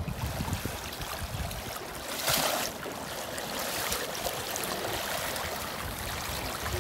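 Rushing river water, with a louder splash about two seconds in as a brown trout thrashes in a landing net at the surface.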